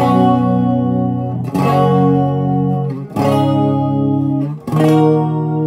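Electric guitar chords played through an MXR Black Label Chorus pedal that is switched on. Four chords are struck about every one and a half seconds, each left to ring until the next.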